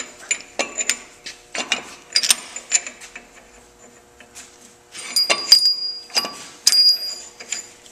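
Steel cone adapter, spacers and nut being slid onto an Ammco brake lathe arbor against a brake rotor: a series of metal-on-metal clinks and scrapes, some ringing briefly, with a pause in the middle.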